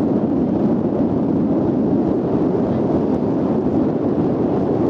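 Wind buffeting the microphone: a loud, steady low rumble that covers other sound.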